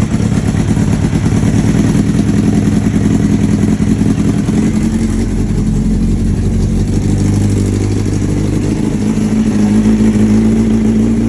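Kawasaki ZX-9R's inline-four engine running on its first start after about a year in storage, with an unsteady idle whose speed shifts about halfway through and again near the end.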